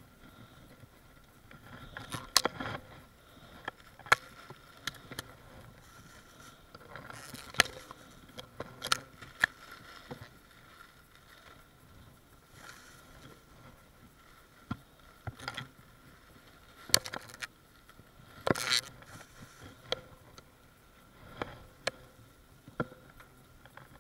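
Gloved hands handling and tearing the papery shell of a bald-faced hornet nest, with scattered sharp knocks and scrapes against the ribbed metal siding and aluminium ladder. The knocks come irregularly, a few seconds apart, over a low rustle.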